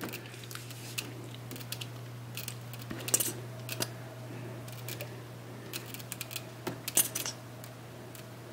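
Small plastic clicks and taps as a squeeze bottle of white glue is pressed and its nozzle touches the ties of HO-scale model railroad track, the loudest a few sharp clicks about three seconds in and again near seven seconds. A steady low hum runs underneath.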